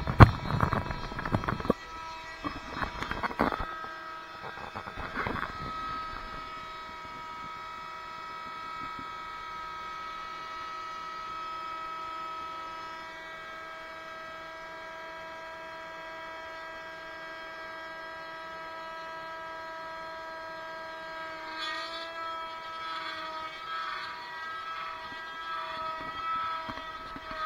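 A Genmitsu 4030 CNC router's spindle runs with a steady high whine while carving a wooden board. Knocks and rubbing from the camera being handled fill the first few seconds. The machine sound grows rougher and uneven over the last few seconds.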